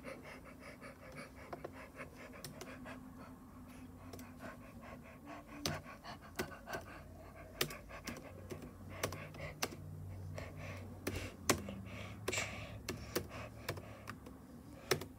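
Faint, irregular clicks of a laptop's keys and trackpad being pressed, over a low steady hum.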